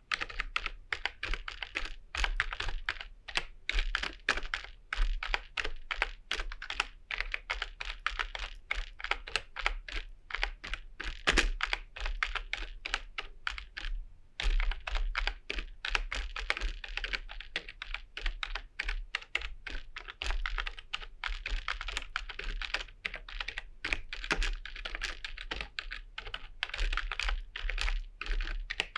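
Typing on a computer keyboard: a fast, continuous run of key clicks, with a short pause about halfway through and one harder keystroke shortly before it.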